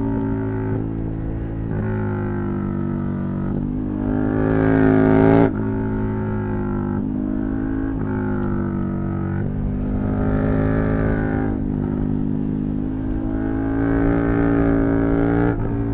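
KTM 1290 Super Duke R's V-twin engine running under way, its pitch climbing with the throttle and then dropping suddenly, loudest just over five seconds in, with a smaller swell in the middle and a second climb that drops off near the end.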